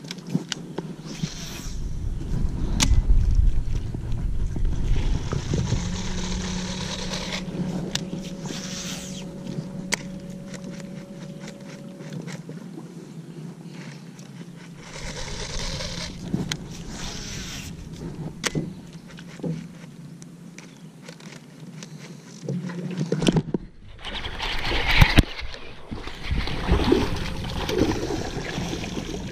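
Scattered clicks and knocks of a baitcasting rod and reel being worked from a small aluminium jon boat. About 23 s in, a hooked spotted bass begins splashing at the surface in a run of loud bursts as it is reeled to the boat.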